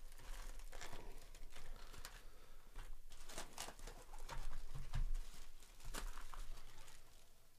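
Plastic wrap and cardboard packaging of a trading card hobby box being handled and torn open: irregular crinkling and tearing with scattered sharp crackles.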